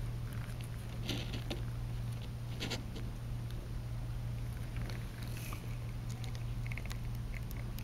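Soft, scattered rustles and small ticks of gloved fingers handling a differential micrometer head and setting it down, over a steady low electrical hum.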